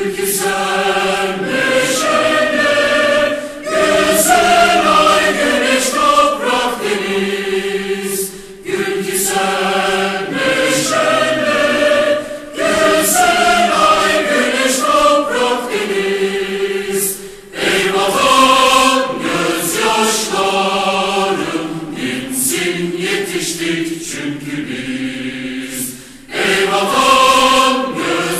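Choir singing a Turkish patriotic march, in phrases of a few seconds with short breaks between them.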